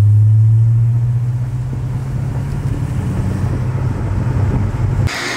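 C6 Corvette Z06's LS7 V8 breathing through long-tube headers and a catless X-pipe, heard from inside the cabin on the move: a steady, deep exhaust drone that eases off a little after about a second, then cuts off suddenly near the end.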